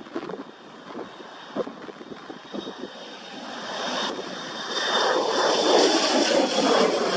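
Aircraft engine noise building steadily louder as a plane approaches and passes, with a thin high whine over it; gusts of wind buffet the microphone in the first seconds.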